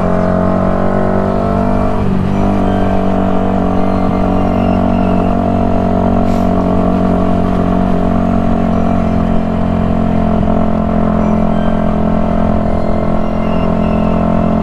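Yamaha YZF-R125's 125 cc single-cylinder four-stroke engine under way. Its note drops with an upshift as the sound begins and shifts again about two seconds in, then holds steady at cruising speed.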